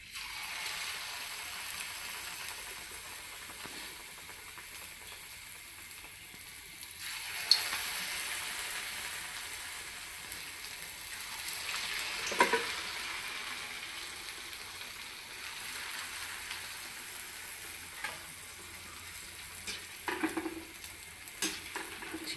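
Sweet corn vadas deep-frying in hot oil, a steady sizzle, with a few brief clinks.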